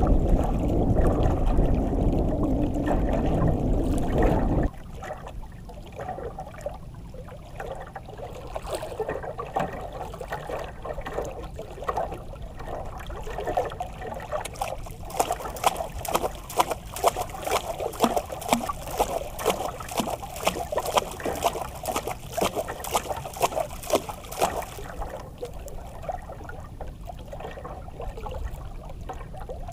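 Water lapping and trickling against the hull of a small outrigger canoe, a patter of small splashes. A louder rushing noise fills the first few seconds and cuts off suddenly; in the middle there is a denser run of fine ticks for about ten seconds.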